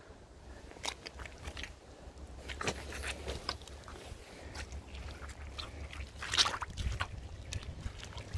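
Riding boots squelching and sucking in mud: irregular wet squishes and pulls as the feet move, the loudest about six seconds in.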